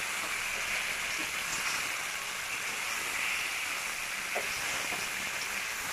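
Potatoes and spice masala frying in oil in a steel kadai, a steady sizzle as they are stirred with a spatula.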